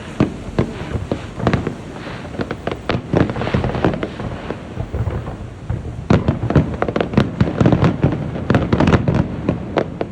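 A fireworks display going off in a rapid volley of sharp bangs and crackles, growing thicker and louder over the last few seconds.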